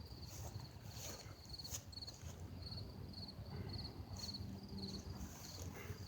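Insects chirping in short, evenly repeated pulses, about two a second, high-pitched and faint, over a low rumble.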